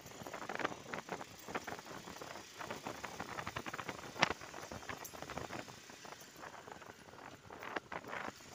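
Rattling and knocking while riding a Bajaj motorcycle over a rough, patched road: dense irregular clicks, with one sharper knock about four seconds in.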